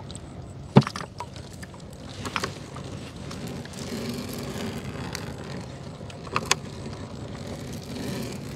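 Steady low hum of a small boat's engine running, with a few sharp knocks and clicks; the loudest knock comes about a second in, and two more come close together near the end.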